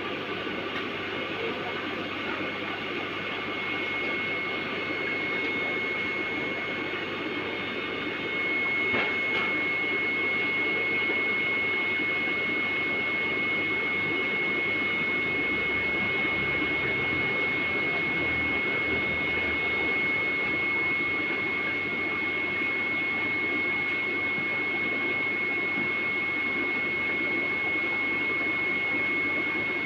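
Water from a small aquarium waterfall feature splashing and trickling steadily, over a steady high whine.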